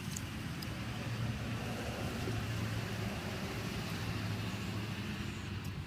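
Fidget spinner whirring steadily as it spins on its bearing, a low even hum.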